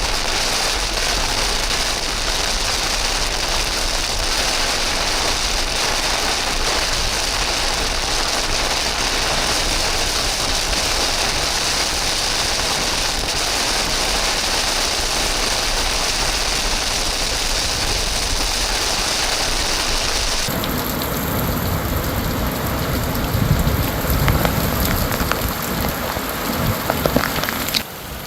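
Heavy rain falling steadily. About two-thirds of the way through, the sound changes abruptly to rain with irregular low rumbling bursts.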